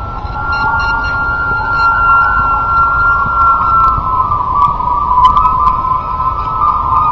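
Taut 80-pound-test kite line singing in 20+ mph wind, a steady high hum that sags slightly in pitch about four seconds in. Wind rumbles on the microphone underneath.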